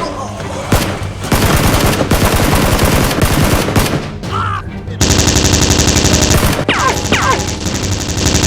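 Rapid automatic gunfire sound effects: one long burst, then after a short break a louder, very even stream of machine-gun fire.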